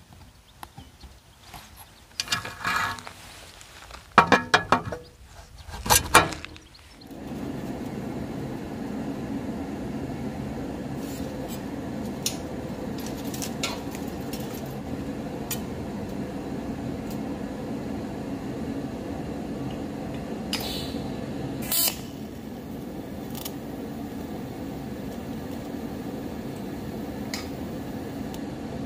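Small steel parts clinking and tapping as a steel sleeve is handled and slid onto the end of an exhaust pipe. About seven seconds in, a steady hum from a TIG welding setup takes over, with a few sharp clicks and a brief crackle a little past twenty seconds in.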